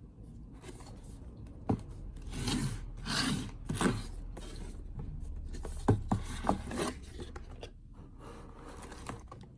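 A box being opened and its packaging handled: rubbing and scraping with a few sharp knocks.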